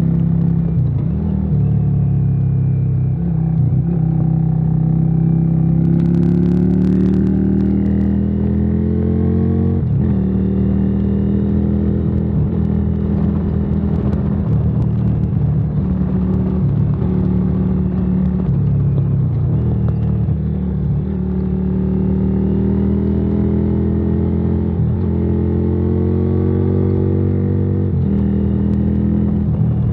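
Yamaha Virago XV535 V-twin with a debaffled exhaust, pulling hard through the gears. The engine note climbs with each pull and drops at each gear change, several times over.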